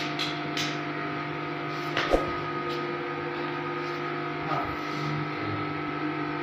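A steady machine hum made of several held tones, with one sharp knock about two seconds in.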